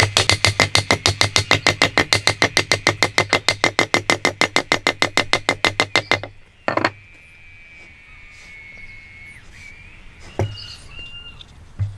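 Rapid, even knocking, about six strokes a second, that stops abruptly about six seconds in. Then a single knock, a faint steady high tone lasting a couple of seconds, and a few soft knocks near the end.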